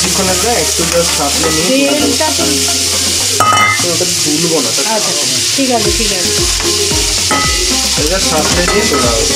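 Crab claws and legs sizzling as they fry in hot mustard oil in a kadai, stirred and turned with a spatula, with one sharp clink of the spatula against the pan about three and a half seconds in.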